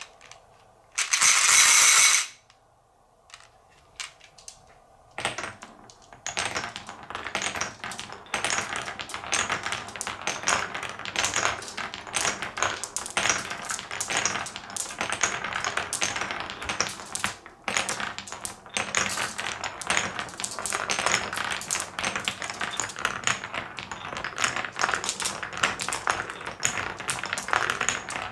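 Glass marbles clinking together in a glass bowl for about a second, then glass marbles rolling and clattering through a wooden Cuboro marble run, a steady stream of small clicks and knocks as they run along the carved beech-wood channels and drop between cubes.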